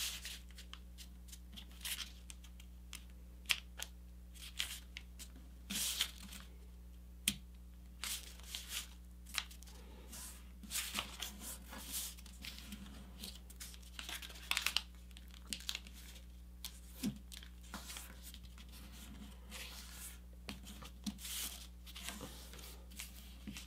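Square sheet of paper being folded and creased by hand: scattered rustles, crinkles and short scrapes as fingers press and smooth the layers.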